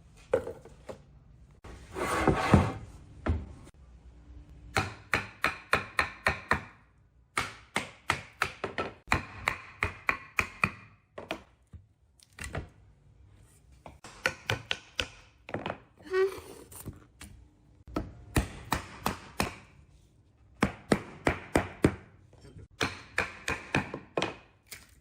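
Rapid strikes of a hand tool on wood, about six a second in bursts of eight to ten with short pauses between, each knock with a slight ring. A short rasping noise comes about two seconds in.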